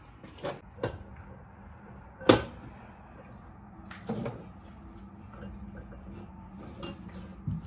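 Handling noise from a leather handbag being moved and touched: a few scattered soft knocks and taps, with one sharper knock about two seconds in.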